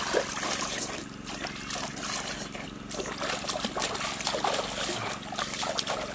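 Stream water trickling, with small irregular splashes.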